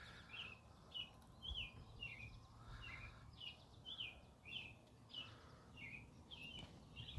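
A bird chirping faintly and repeatedly, short high notes about two a second.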